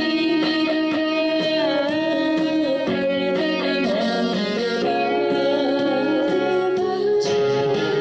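Trot music playing an instrumental passage, led by an electric guitar melody with some bending notes over a steady accompaniment.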